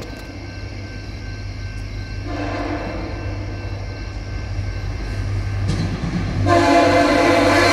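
VIA Rail passenger train sounding its multi-note air horn as it approaches: a short blast about two seconds in, then a longer, louder blast starting near the end. Under the horn, the low rumble of the oncoming train grows steadily louder.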